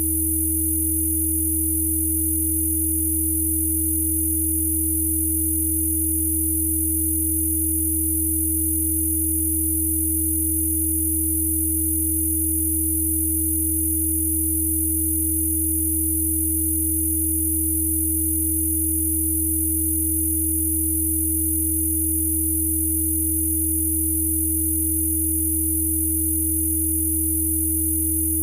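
Synthesized Rife frequency tones played as audio: a steady electronic drone made of a low hum, a clear mid tone and faint very high whistles, all held without change.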